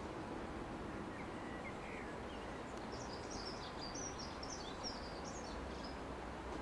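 Small bird singing: a few high chirps about a second and a half in, then a quick twittering phrase from about three seconds in, over steady low outdoor rumble.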